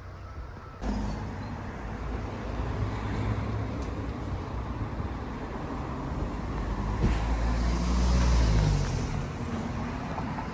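Road traffic by a street, with a steady rumble of cars; one vehicle passes, loudest about eight seconds in. A brief click comes shortly before it.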